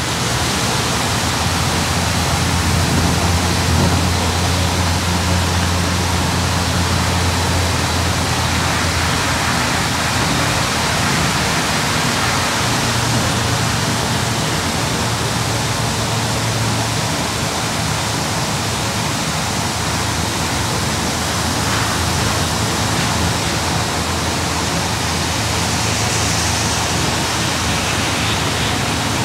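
Open-sided parking-lot tram rolling across wet pavement: a steady hiss of tyres on the wet surface over a low hum of the running gear, with the hum fading somewhat after about eight seconds.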